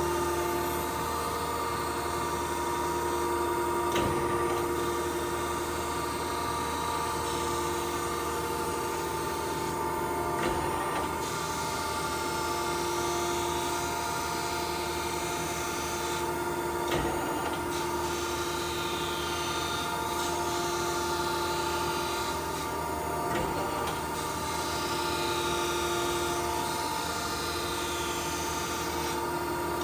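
Okamoto ACC-2040DX2 hydraulic surface grinder running an automatic fine-grinding cycle. The spindle and hydraulics hum steadily under the hiss of the grinding wheel on the workpiece. A faint knock comes about every six seconds, and the hiss briefly drops away at intervals.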